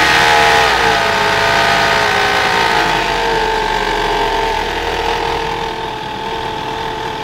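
Engine revs falling back and settling into a steady idle. This is the engine that the owner says is making an extraneous noise.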